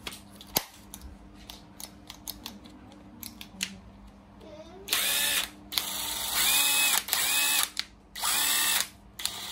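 National EZ6504 12 V cordless impact driver run with no load in several short trigger pulls. About halfway in, the motor whines up, then whirs in repeated bursts that start and stop sharply. Light handling clicks come before the bursts.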